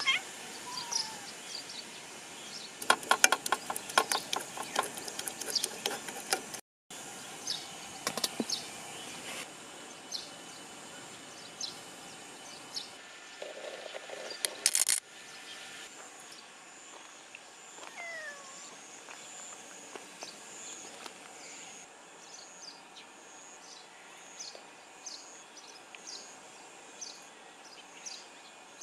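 A cat meows a few times, once right at the start and again partway through, over outdoor background with clattering knocks in the first part and a run of short high bird or insect chirps toward the end.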